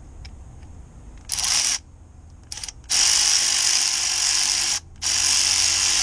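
Milwaukee M12 Fuel cordless electric ratchet running in bursts as it drives a fastener: a short burst, a brief blip, then two longer runs of about two seconds each with a short pause between.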